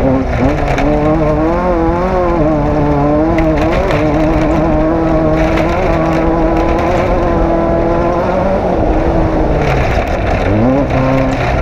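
Off-road race vehicle's engine running hard under throttle, its pitch wavering up and down with the terrain, then dipping briefly and climbing again about ten seconds in.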